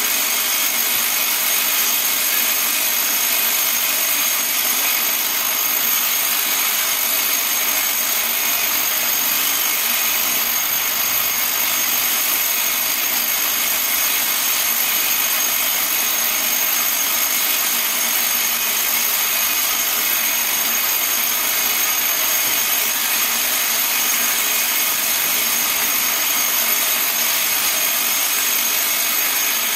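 Vibratory bowl feeder running continuously, its bowl full of stamped steel compressor feet rattling as they are shaken around the track, with a steady high-pitched whine over the metallic clatter.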